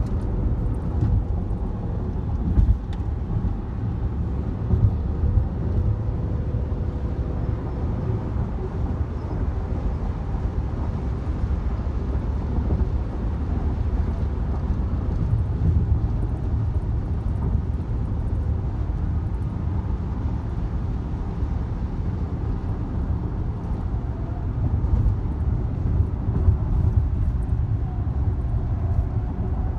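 Steady low rumble of road and engine noise from a car driving on the freeway, heard from inside the car.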